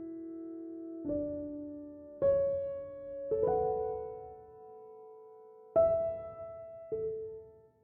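Slow, gentle piano music: chords struck every second or two, each left to ring and fade.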